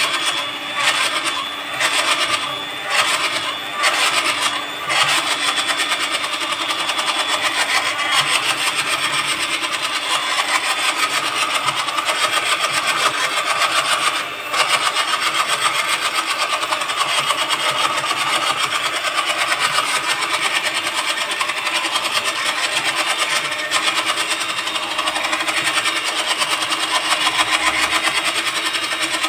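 Electric hand mixer running steadily, its beaters whirring through cake batter as an egg is beaten into creamed butter and sugar. For the first few seconds the sound swells and dips about once a second, then runs evenly, with one brief dip about fourteen seconds in.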